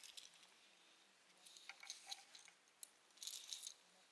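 Near silence with a few faint rustles and light clinks, in short clusters about one and a half seconds in and again just after three seconds.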